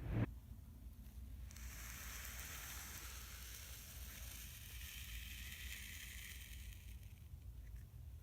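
A soft thump, then a faint grainy hiss of kinetic sand being cut and crumbling that lasts about five seconds and fades out near the end.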